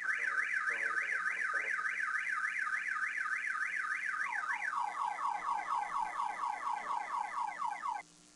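Electronic alarm siren warbling rapidly up and down, about four sweeps a second. About halfway through it switches to a pattern of quick falling sweeps, then cuts off suddenly near the end.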